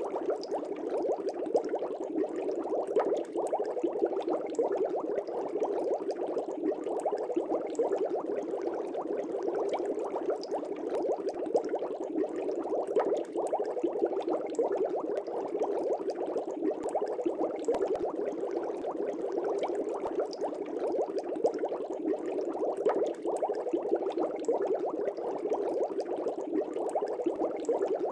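Fish tank air bubbles rising through the water in a steady, continuous bubbling made of many small pops.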